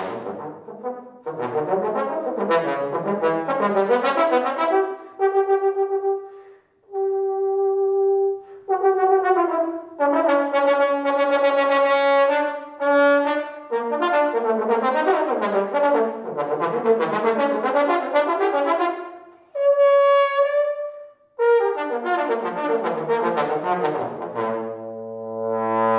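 Solo trombone playing unaccompanied: quick runs of notes broken by a few long held notes, with short breaths between phrases.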